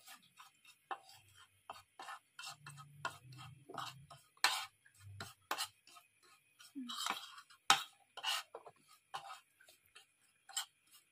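Spoon clinking and scraping against a bowl in irregular taps as dry ground spices are stirred together.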